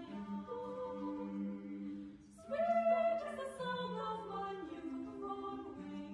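Mixed-voice chamber choir of about a dozen women and men singing a cappella in sustained chords. A brief break about two seconds in, then the voices come back in louder.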